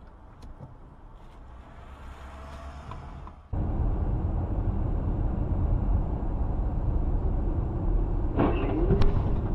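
Steady low rumble of a car driving, as a dashcam hears it from inside the cabin: faint for the first three seconds, then it jumps suddenly to a louder, steady road-and-engine drone. Near the end a brief pitched sound and a sharp click stand out over it.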